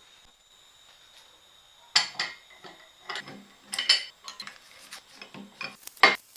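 Metal parts of a cast-iron bench vise being handled: a run of irregular clinks, knocks and rattles that starts about two seconds in, with a sharper knock near the end.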